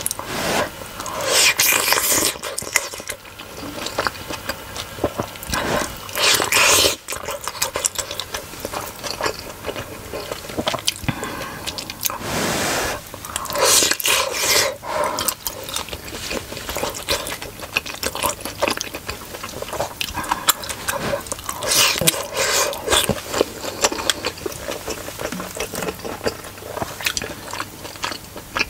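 Close-miked eating: biting into and chewing big steamed pork momos dipped in tomato achar, a run of irregular wet smacking, slurping and chewing sounds.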